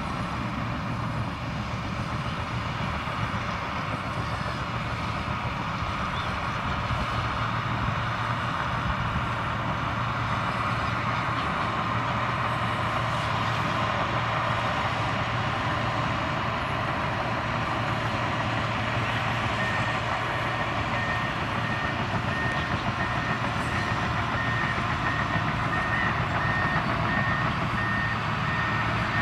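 Komatsu crawler bulldozer's diesel engine running steadily under load as it works. About two-thirds of the way in, its reversing alarm starts beeping at an even pace as it backs up.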